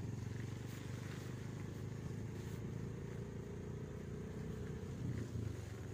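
Daihatsu Gran Max van's engine running steadily as it drives, a low even drone.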